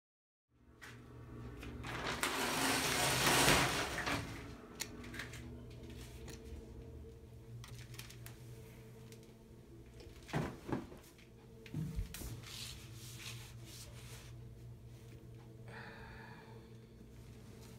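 Rustling and handling noise, loudest in the first few seconds, then a few soft knocks over a steady low hum.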